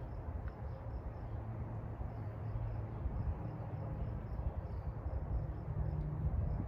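Outdoor background: a steady low rumble with faint, evenly repeating high chirps of insects such as crickets, and no clear tool noise.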